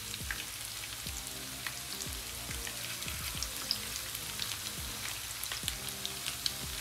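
Floured unicornfish pieces shallow-frying in hot oil in a pan: a steady sizzle with scattered crackles and pops.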